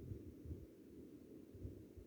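Near silence with a faint low rumble and a few soft, dull thumps.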